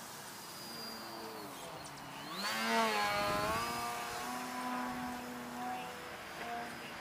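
Radio-control Edge 540T aerobatic model plane flying by, its motor and propeller making a pitched drone. The sound swells to a peak about three seconds in as the plane passes close, with the pitch sliding, then carries on quieter while its pitch keeps shifting as the plane climbs away.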